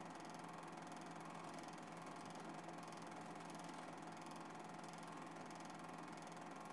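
Faint steady machine hum with hiss, a few held tones that do not change, and no distinct events.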